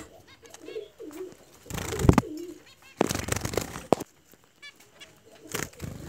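Pet finches giving short runs of quick, high chirps several times, with a few sharp knocks and rustles from the nest basket being handled, loudest about two and three seconds in.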